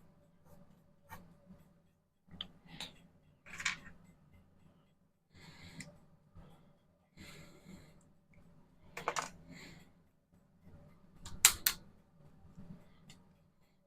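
Scattered clicks, taps and short scrubbing sounds from acrylic painting by hand: a brush on the canvas and small painting supplies being handled. The loudest is a pair of sharp clicks about eleven and a half seconds in.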